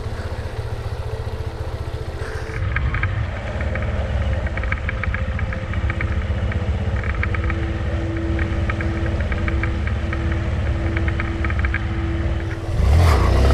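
Honda CRF230L dual-sport motorcycle's air-cooled single-cylinder engine running steadily at low speed, with a light, rapid rattling clatter over it. Near the end the engine gets louder as the throttle opens.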